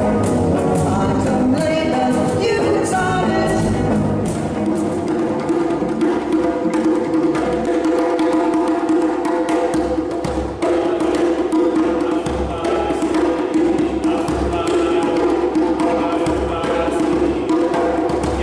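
Live band music for the first few seconds, then West African djembe drumming played by hand, a steady rhythm of sharp slaps and deep bass thuds, with a voice singing held notes over it.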